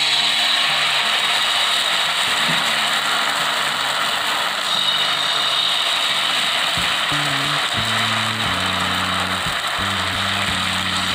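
Dosa batter sizzling steadily on a hot, ghee-greased iron tawa over a low flame as it is ladled on and spread. Low background music comes in during the second half.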